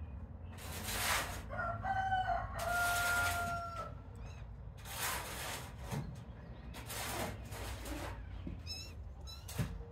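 Rooster crowing: a couple of short notes, then one long held note, about two to four seconds in. Short bursts of noise come and go around it.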